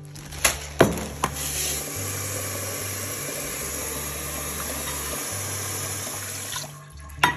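Water from a kitchen tap pouring into a rice cooker's inner pot of rice, rinsing the rice. The water runs steadily from about two seconds in and stops near the end, with a couple of sharp knocks before it and one more just after it stops.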